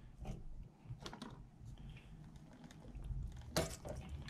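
Faint, scattered light clicks and taps of long-nose pliers working the spring clip on a lawnmower's fuel pipe, with a louder cluster of clicks near the end.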